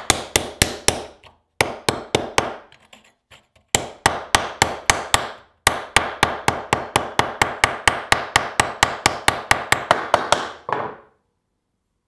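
Quick runs of hammer blows, about five a second, on a thin cold steel plate being dished into a hollow in an end-grain wooden block with a round-faced hammer. The blows come in four runs with short pauses, and stop about eleven seconds in.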